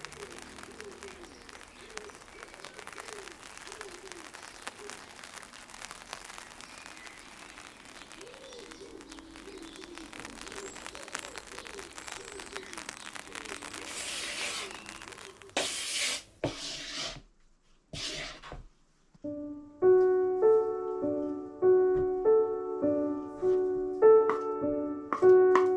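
Steady hiss of rain with faint wavering tones underneath, then a few short loud bursts of noise, and soft background piano music starting about twenty seconds in.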